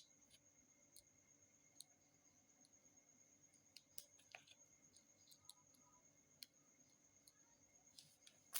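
Near silence broken by scattered faint clicks and taps, a few seconds apart, with a louder cluster of clicks near the end: small plastic phone parts and tools being handled while the downboard cover is fitted.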